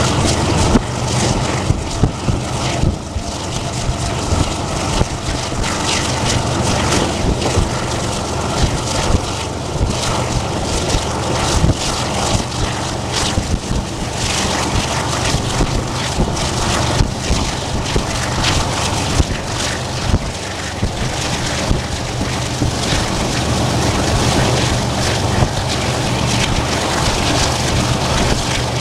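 TranzAlpine passenger train running at speed, heard from on board: a steady rumble and rattle with frequent short clicks and knocks, and wind on the microphone.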